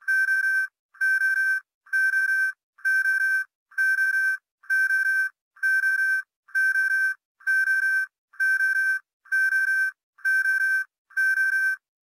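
Electronic beep repeating thirteen times at an even pace of a little more than one a second, each beep held for most of a second at one steady high pitch.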